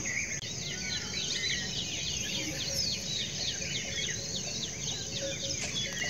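Many small birds chirping busily, quick overlapping calls, over a steady low background noise.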